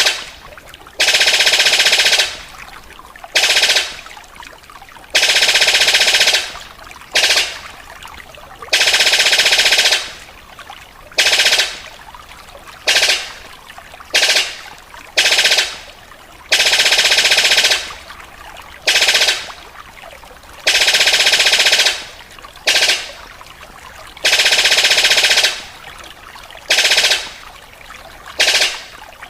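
A paruh sabit bird giving loud, rattling, rifle-like calls. The calls come in repeated bursts that start suddenly: about every four seconds a burst lasts a little over a second, with short bursts in between.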